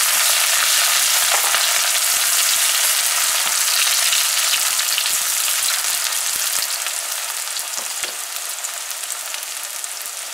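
Sliced onions sizzling in hot oil in a karahi, stirred with a silicone spatula. The sizzle eases off gradually over the last few seconds.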